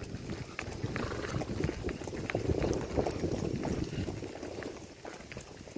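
Horse hoofbeats on a dirt trail at a quick, uneven gait, with the rattle and rustle of riding. Louder in the middle and fading near the end.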